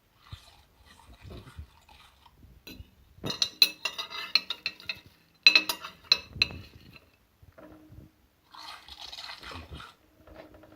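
Slime being squeezed and handled, giving bursts of crisp crackling and clicking, densest a few seconds in, then a softer rustling hiss near the end.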